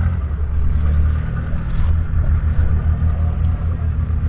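The 6.2-litre six-cylinder diesel engine of a 1966 Ford Roadless Ploughmaster 90 tractor running steadily with a low rumble, heard up close.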